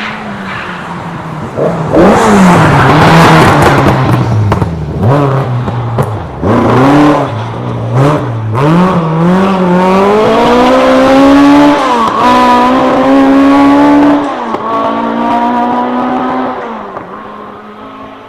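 Rally car engine revving hard, its pitch climbing and dropping again and again as it shifts gear and lifts off. It comes in loud about two seconds in and fades away near the end as the car moves off.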